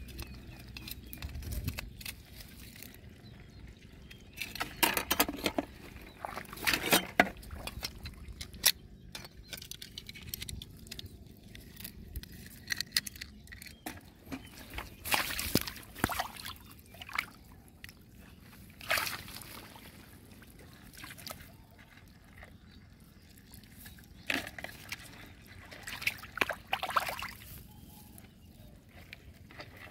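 Shallow muddy water sloshing and splashing in irregular bursts as hands and a digging tool work through it, with quieter stretches between.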